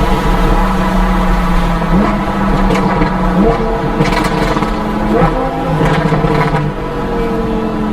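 Lamborghini Huracan LP610-4's V10 running through an Armytrix titanium exhaust, its pitch jumping up suddenly several times and sagging slowly in between, as in successive downshifts while slowing. Sharp exhaust crackles and pops come through in the middle.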